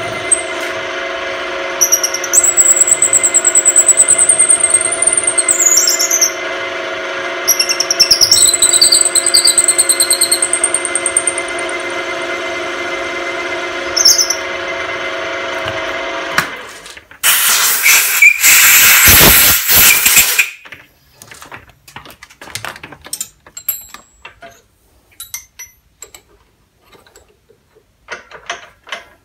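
A mill-drill's spindle motor runs with a steady hum while a tapping drill bores into a handle, and the bit squeals high as it cuts, twice for several seconds each. The motor stops about sixteen seconds in. A loud hissing burst follows for about three seconds, then scattered small clicks and knocks from handling the tools.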